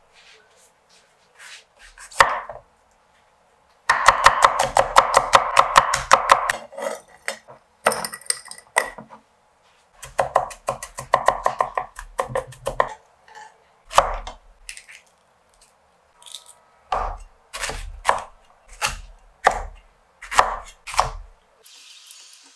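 Chinese cleaver chopping food on a thick wooden cutting board: a fast run of chops a few seconds in, more short runs, then slower single strikes in the second half.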